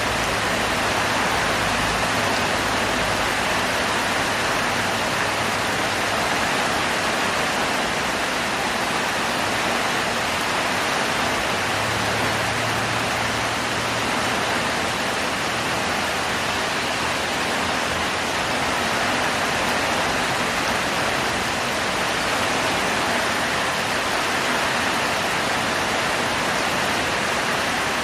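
Heavy rain falling, a steady dense hiss that holds at the same level throughout.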